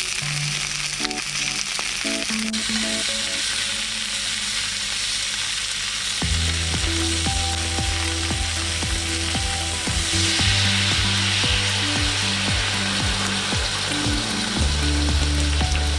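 Food frying in a pan, a steady sizzling hiss that swells a little past the middle. Background music plays underneath, its bass and beat coming in about six seconds in.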